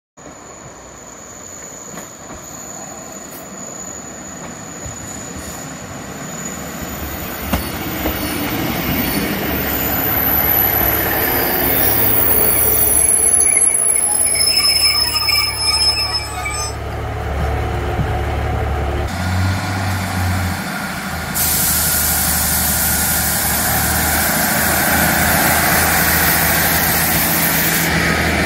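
Diesel multiple unit pulling into a station: the running and wheel noise builds over the first dozen seconds, with high brake squeals in the middle. It then stands with its engine idling in a steady low drone, and a steady hiss joins about three-quarters of the way through.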